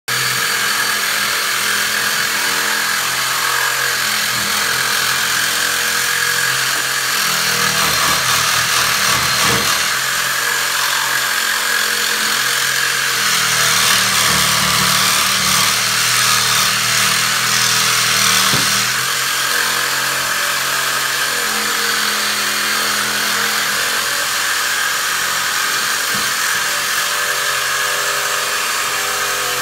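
A handheld cordless power tool running almost without a break, its motor pitch stepping up and down as it works at the base of an old kitchen faucet being removed.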